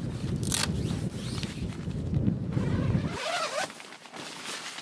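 A tent door zipper being pulled in short rasps, over wind rumbling on the microphone. About three seconds in the wind rumble cuts out abruptly.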